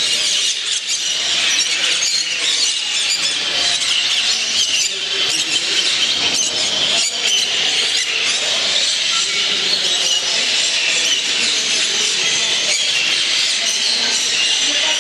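Many caged birds chirping and calling at once: a steady, dense, high-pitched chorus with no pauses.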